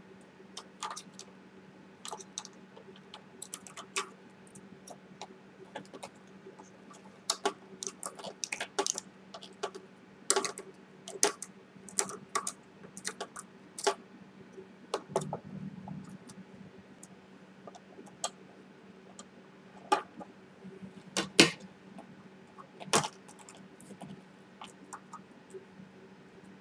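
Irregular clicks, taps and light clatter of a metal pliers multitool and small parts being handled on a stone countertop, mixed with laptop keyboard and trackpad clicks. The loudest knocks come near the end, over a steady low hum.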